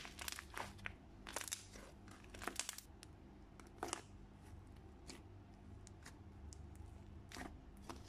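Fluffy slime squeezed and stretched by hand, giving faint, irregular sticky crackles and pops, bunched in the first few seconds and again near the end.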